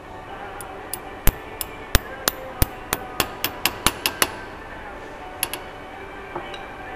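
About a dozen sharp hammer strikes, coming faster toward the end, tap a part down onto the helical rotor shaft of a progressive cavity dosing pump held in a bench vise. Two light ticks follow shortly after.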